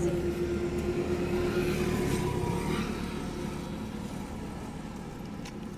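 A motor vehicle's engine on the street, a steady hum that fades away over the first three or four seconds as the vehicle moves off.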